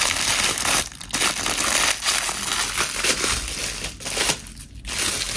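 Product packaging being handled and torn open: a continuous rustle broken by short pauses about a second in and again near the end.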